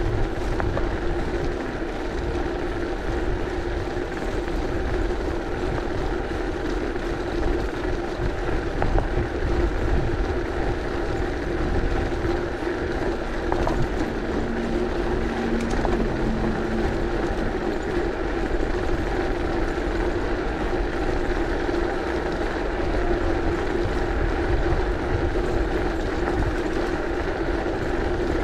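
Bicycle tyres rolling over cobblestones, with a steady rattling rumble from the wheels and frame and a constant low hum.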